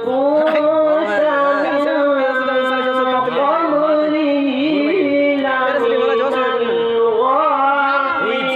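A man reciting the Quran in the melodic qira'at style into a microphone, holding long notes and ornamenting them with wavering turns, with a fresh rising phrase near the end.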